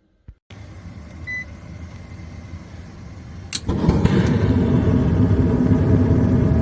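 A relay clicks about three and a half seconds in and a gas furnace's draft inducer motor starts up, then runs with a steady hum as the furnace begins its ignition sequence after wait mode. A short electronic beep sounds shortly after a second in.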